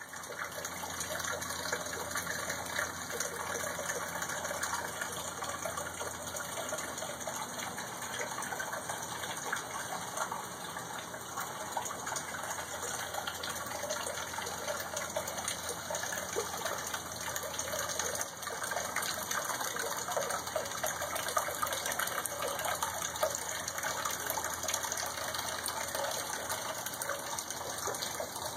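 Water falling out of a concrete storm drain, a steady splashing rush.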